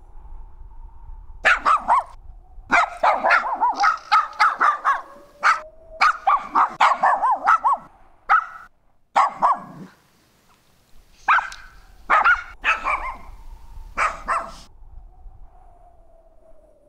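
Small Coton de Tulear dog barking in quick runs of short, sharp, high barks, breaking off for about a second midway and stopping a couple of seconds before the end.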